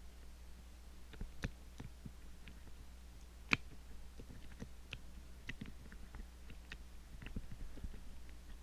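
Lock pick and tension tool working the levers of an Ingersoll 10-lever padlock core: scattered small, irregular metal clicks and ticks, one sharper click about three and a half seconds in, over a steady low hum.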